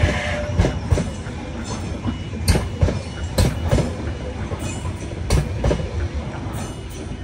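NSW TrainLink H set (Oscar) double-deck electric train passing, its wheels clacking irregularly over the rail joints under a steady rumble. The sound fades as the last car goes by.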